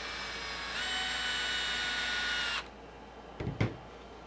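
Cordless Milwaukee drill-driver motor whining as it drives a threaded part for the center brace: it runs at one pitch, steps up higher and louder about a second in, then stops sharply after about two and a half seconds. A couple of short knocks follow near the end.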